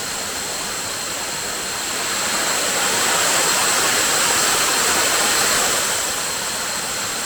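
Waterfall: a steady rush of falling water that swells louder for a few seconds in the middle, then settles back.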